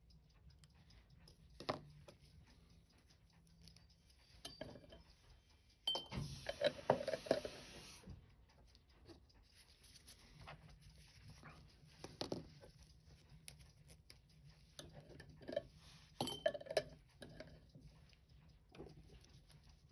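Scattered small clicks and taps of metal watchmaker's tools on watch movement parts, with a louder run of clattering and rustling about six to eight seconds in.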